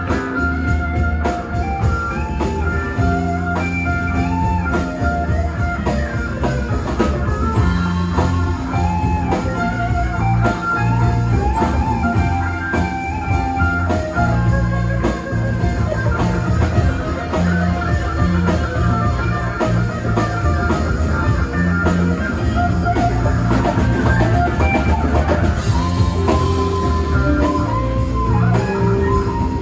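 A live rock band playing an instrumental passage: electric guitar playing a run of melodic lead notes over bass and a drum kit.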